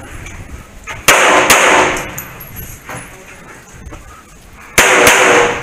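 Pistol shots in two quick pairs: two shots about a second in, then two more near the end, each pair fired under half a second apart. Each shot rings on with a metallic echo.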